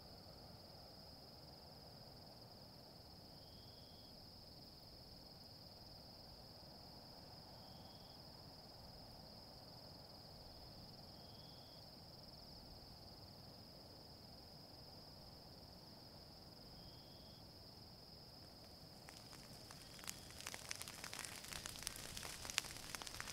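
A steady high trill of crickets, with a short call repeating every few seconds. About nineteen seconds in, a bushfire starts crackling, with sharp pops, and becomes the loudest sound.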